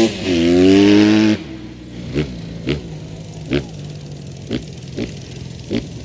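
Small off-road vehicle engine revving hard close by, its pitch climbing twice, then cutting off abruptly a little over a second in. After that a fainter engine runs steadily, with a string of short loud blips every half second to a second.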